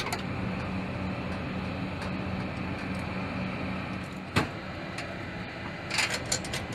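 Steady mechanical hum over a bed of even background noise, with a single sharp knock about four seconds in and a few short clicks and clatters near the end.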